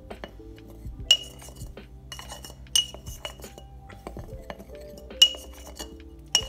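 Metal spoon stirring powder in a glass mason jar, clinking against the glass about five times, each clink ringing briefly.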